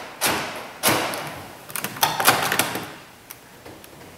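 A car door's inside handle and lock linkage being worked by hand, giving about four sharp plastic-and-metal clunks, three of them in quick succession about two seconds in. The lock rod is binding and not yet making a full stroke.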